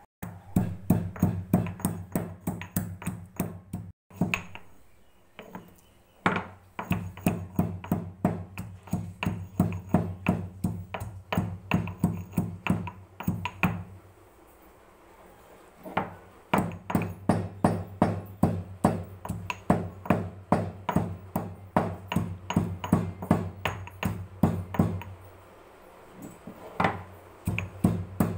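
Stone pestle pounding whole black peppercorns, cumin seeds and cardamom pods in a stone mortar to crush them: repeated strikes, about three a second. The strikes come in runs broken by short pauses about 4, 14 and 25 seconds in.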